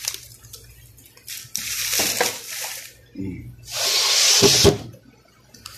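Handling noise at a supermarket chest freezer: a plastic bag rustling and the sliding glass lid being moved, in two hissing bursts, the second, about four seconds in, the louder. A low steady hum runs underneath.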